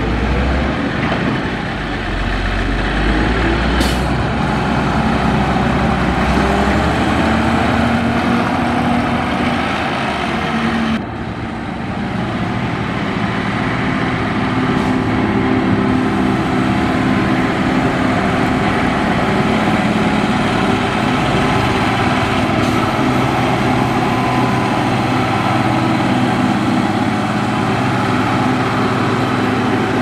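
Motor grader's diesel engine running steadily under load as it grades a dirt road, a continuous heavy drone that dips briefly about eleven seconds in.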